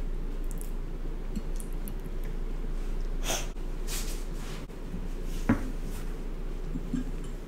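Steady low hum of room and microphone noise, with a child's two sharp, breathy breaths close to the microphone a little past the middle and a single sharp click about three-quarters of the way in.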